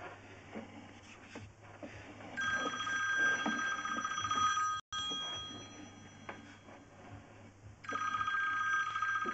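A phone ringing: two rings of a steady, slightly trilling electronic tone, each lasting about two and a half seconds, about three seconds apart.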